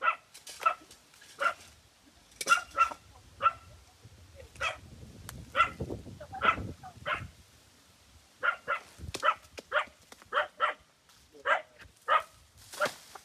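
A dog barking repeatedly in short, sharp barks, at irregular intervals of about half a second to a second, with a low rumble in the middle.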